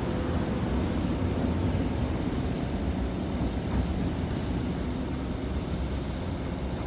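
Low rumble of a Kobe Municipal Subway train pulling out of the underground station, steady and slowly fading as it leaves.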